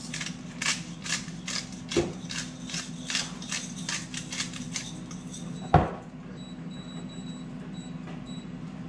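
Seasoning dispensed from a handheld spice container over a bowl of raw chicken wings: a rhythmic run of gritty rattles, about two or three a second, for about five seconds. Then a single thump, over a steady low hum.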